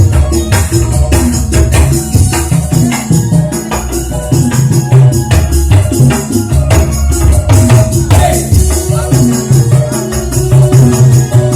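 Loud music with a steady beat: a tambourine jingling over heavy bass and drums, with a melody line.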